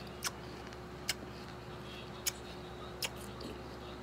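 Mouth sounds of chewing a raw iba (bilimbi) fruit with the mouth closed: four short, sharp wet clicks spaced about a second apart, over a faint steady hum.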